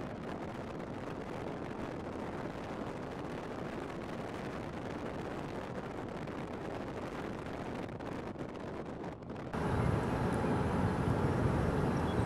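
Steady road and engine noise inside a moving car's cabin. About three quarters of the way through it cuts suddenly to louder, deeper wind rumble on the microphone.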